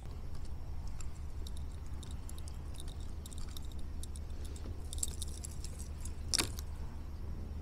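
Light metallic jingling and clicking from a square-bill crankbait's treble hooks and rattles as it is handled with a freshly caught small bass, with a sharper click about six seconds in, over a steady low hum.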